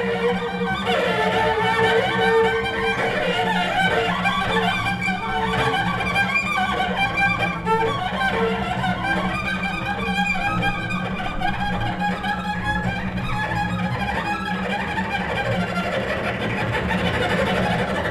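Two double basses bowed together in free improvisation: a steady low sustained drone underneath, with shorter higher bowed notes coming and going above it.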